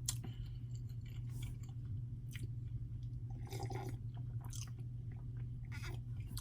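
Close-up mouth sounds of a person chewing soft lasagna: short, wet smacks and squelches every second or so, over a steady low hum.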